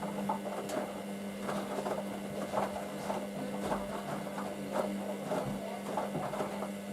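Hoover DYN9144D3X front-loading washing machine in its wash, the drum turning with a steady motor hum and irregular swishes and soft knocks of wet laundry and water tumbling.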